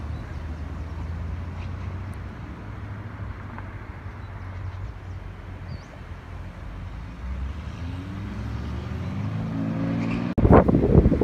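Road traffic: a motor vehicle's engine running with a steady low hum, then rising in pitch as it speeds up over the last few seconds. About ten seconds in, this gives way suddenly to loud, gusty wind noise on the microphone.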